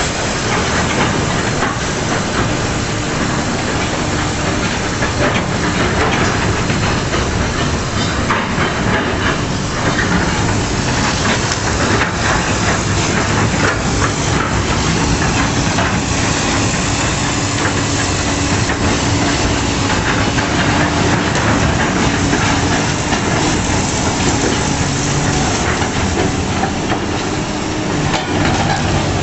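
A machine running steadily: a loud, even hiss with a faint low engine hum underneath.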